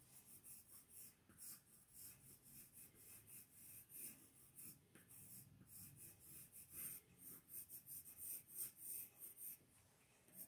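Pencil sketching on paper: faint, quick scratchy strokes in a rapid run, stopping about a second before the end.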